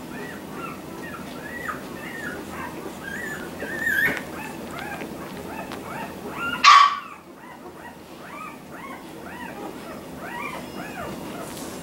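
Four-week-old Labrador retriever puppies whimpering: a steady run of short, high, rising-and-falling squeaks, with one loud, short cry just under seven seconds in.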